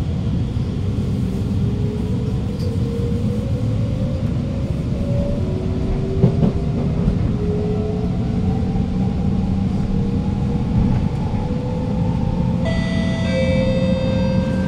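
Alstom Movia R151 metro train accelerating, heard from inside the carriage: a steady rumble of the running train with a motor whine rising slowly in pitch as it picks up speed. A cluster of high steady tones comes in near the end.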